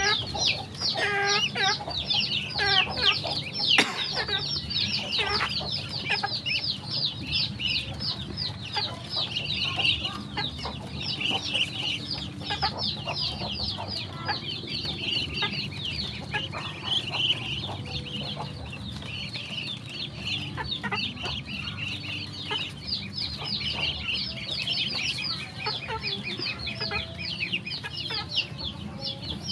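A crowd of ducklings peeping nonstop, rapid high falling peeps overlapping one another, with a few lower calls in the first few seconds and a sharp knock about four seconds in.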